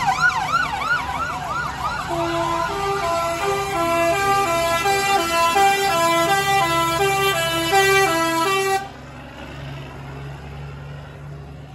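Fire engine siren sounding a fast yelp, then switching about two seconds in to a two-tone hi-lo that cuts off abruptly about nine seconds in. A lorry's engine runs low underneath and carries on after the siren stops.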